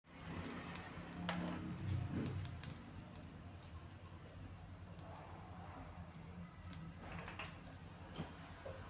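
A plastic cooking-oil bottle handled and oil poured into an empty wok: scattered light clicks and knocks over a low steady hum.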